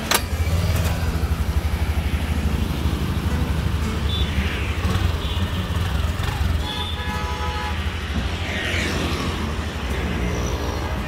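A click, then the Honda Activa 125 scooter's single-cylinder engine idling with a steady low throb, loudest in the first few seconds. Background music plays over it.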